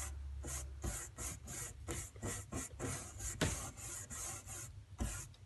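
Paint being applied to cardboard in quick, scratchy rubbing strokes, about three a second, while brick shapes are painted freehand in a dark colour.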